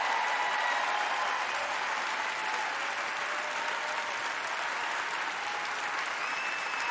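Large audience applauding steadily in a big hall.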